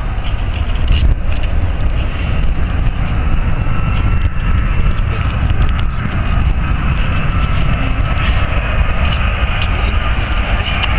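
Twin-engine jet airliner on final approach, its engine whine faint at first and growing steadily louder as it nears, over a heavy steady low rumble.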